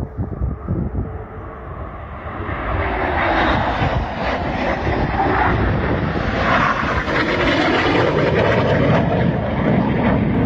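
BAE Hawk jet trainer's Adour turbofan roaring as the jet flies low past, the noise swelling a couple of seconds in and then holding loud, with its pitch dropping as it goes by. Wind buffets the microphone at first.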